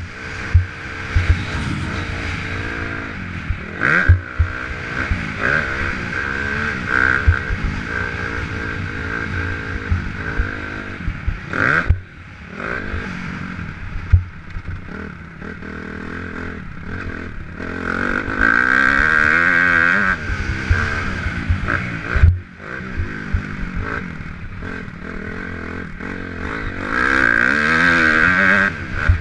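Dirt bike engine heard from a bike-mounted camera, revving up and dropping back again and again as it rides a motocross track. Sharp knocks and rattles cut through several times as the bike hits bumps.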